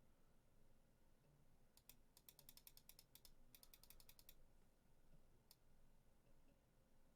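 Faint rapid typing on a computer keyboard: two quick runs of key clicks about two seconds in, then a single click a little later.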